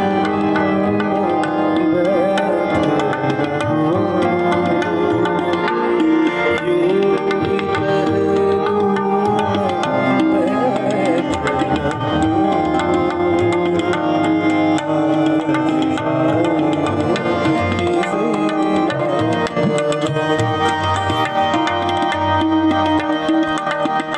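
Live ghazal accompaniment: tabla playing continuously alongside sustained harmonium chords and acoustic guitar.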